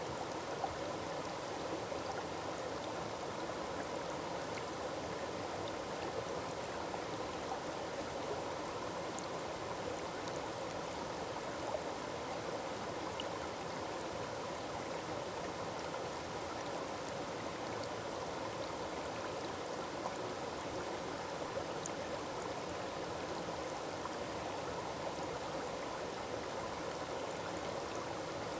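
Small forest waterfall splashing and rushing steadily, with water running over rocks.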